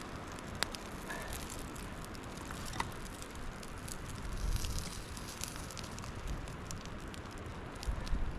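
Small fire of wet birch kindling crackling, with scattered sharp pops over a steady hiss, and dull bumps about four and a half and eight seconds in.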